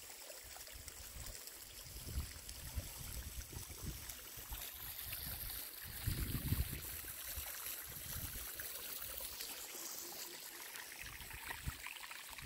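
Faint flowing water, with uneven low rumbling on the microphone that swells about six seconds in.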